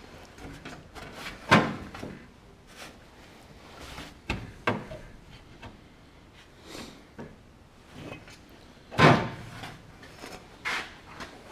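Steel inner fender panel knocking and scraping against the car's sheet-metal body as it is held and shifted into place by hand: a few sharp metallic clanks, one about a second and a half in, another near five seconds, and the loudest about nine seconds in, with lighter taps and rubbing between.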